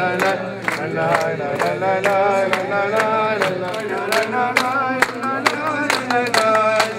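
Group of people singing a melody together in unison, with steady rhythmic hand-clapping at about three claps a second.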